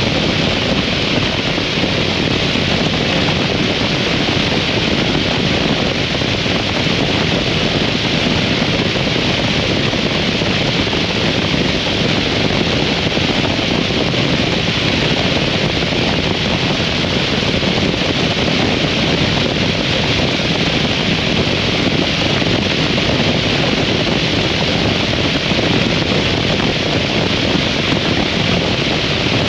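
Steady wind rush over the microphone of a 2003 Harley-Davidson V-Rod riding at an even speed, with the bike's engine and road noise blended underneath and no revving or gear changes.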